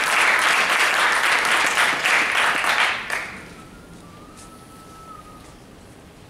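Audience applauding, a dense patter of clapping that dies away about three seconds in.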